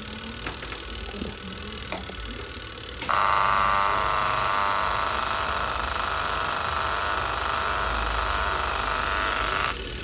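Semi-automatic washing machine wash motor, powered through its spin-direction timer and capacitor, starts suddenly about three seconds in and runs with a steady hum, then stops abruptly just before the end as the timer cuts the power. A few faint clicks come before it starts.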